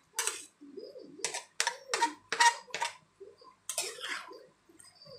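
Metal spatula scraping and clacking against a wok while tossing a batch of rice vermicelli. There are about eight short strokes, several in quick succession from about a second in and a couple more near the end.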